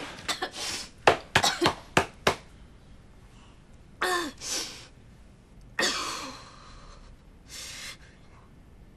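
A woman drinking quickly from a glass: a quick run of sharp gulps over the first couple of seconds, then two short voiced sighs falling in pitch and a breathy exhale near the end.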